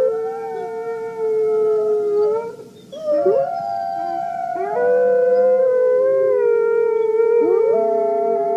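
A pack of canines howling in chorus, several voices holding long overlapping notes at different pitches. There is a short lull about two and a half seconds in, then new howls rise in and join the chorus.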